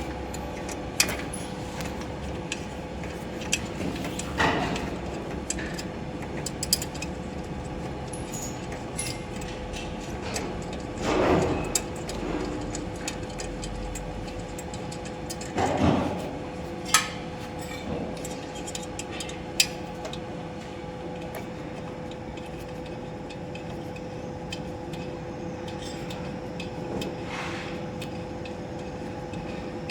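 Scattered metallic clinks and knocks of tools and steel parts being handled while a mould is taken off a band saw cutting machine, a few of them louder, over a steady electrical hum.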